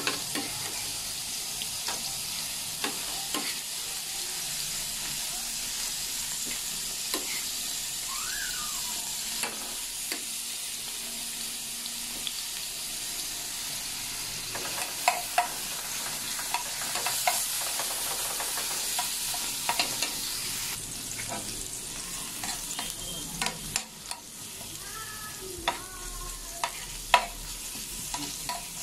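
Garlic and sliced red onion sautéing in hot oil in a nonstick frying pan, a steady sizzle. A spatula stirs and scrapes through them, with sharp taps against the pan now and then, loudest about halfway and near the end.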